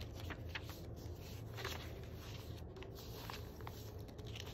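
Paper rustling with scattered light ticks as the thick pages of a handmade junk journal are handled and turned, over a faint low hum.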